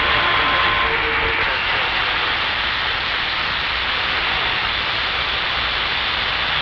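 CB radio receiver hissing with open-channel static between transmissions, a steady rush of noise; faint whistle tones fade out about a second in.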